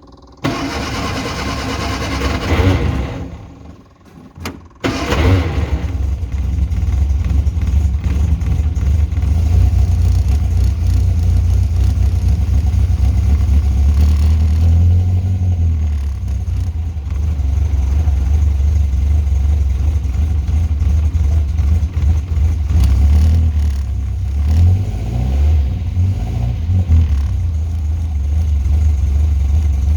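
Car engine cold start: the starter cranks for about three seconds without the engine catching, then on a second try about five seconds in it fires and settles into a steady idle, with a few brief rises and falls in engine speed later on.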